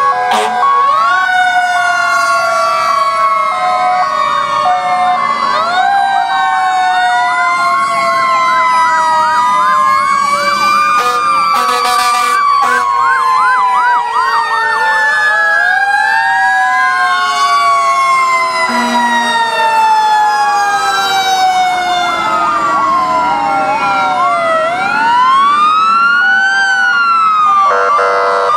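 Several fire-truck sirens sounding at once: electronic wails and fast yelps over the long, slowly falling wind-down of mechanical sirens, with short steady horn-like tones near the start.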